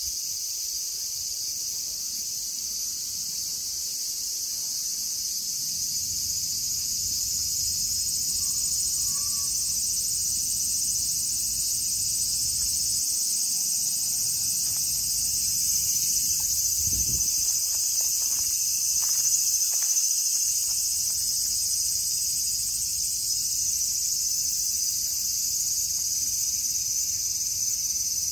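Steady, high-pitched shrilling of an insect chorus, with a low rumble underneath from about six seconds in and a brief low bump about two-thirds of the way through.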